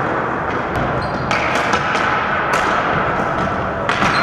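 Ball hockey play on a gymnasium floor: a scattered string of sharp clacks and knocks from sticks and the ball striking the hard floor, echoing in the hall over a steady background din.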